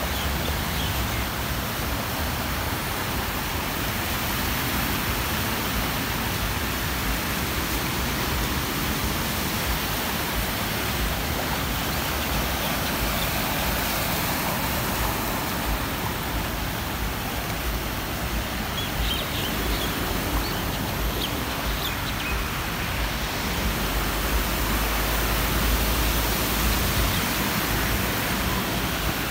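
Steady rushing hiss of heavy rain and floodwater, with a low rumble that swells for a few seconds near the end.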